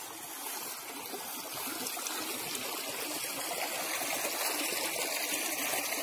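Shallow stream trickling and running over rounded stones, growing steadily louder.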